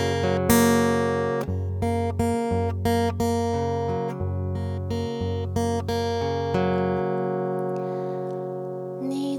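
Acoustic guitar playing a slow intro, one strummed chord about every half second, then a last chord left ringing for a couple of seconds near the end.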